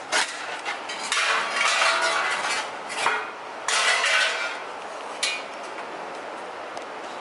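Metal clinking and clattering, with a few sharp knocks and stretches of hissy noise.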